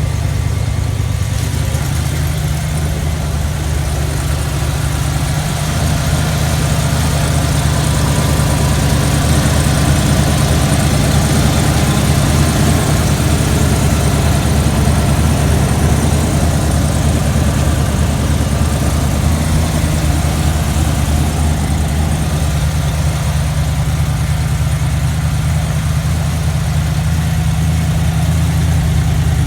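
A 1973 Ford Bronco's engine running steadily at an even pitch, with no sharp revving.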